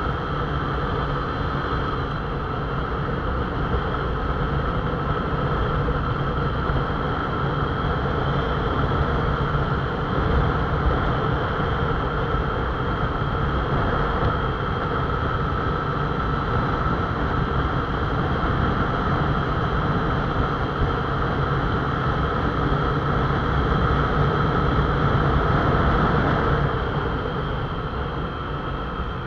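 Motorcycle engine running steadily at cruising speed, mixed with wind and road noise on the bike-mounted camera's microphone. It eases off a little near the end.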